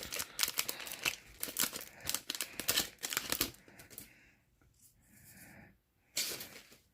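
Wrapper of a retail trading-card pack crinkling and tearing as it is opened, for about three and a half seconds, then a short rustle near the end as the cards are handled.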